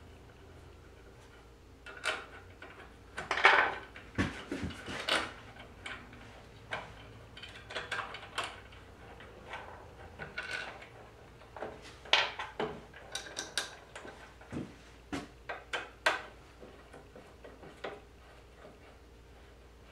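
Irregular clinks, taps and clatters of hand tools and bolts against an aluminium carriage plate as it is bolted onto the CNC router's gantry, with the loudest clatter a few seconds in.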